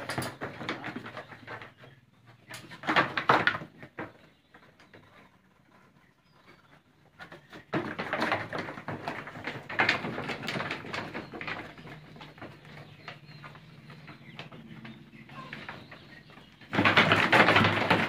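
Sheep and lambs milling in a pen with a raised wooden slatted floor, their hooves clattering on the slats in irregular bursts, loudest near the end.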